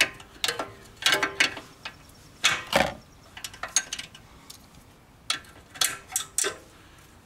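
Hand ratchet wrench clicking in short bursts of strokes, about six separate bursts, as a suspension bolt is turned.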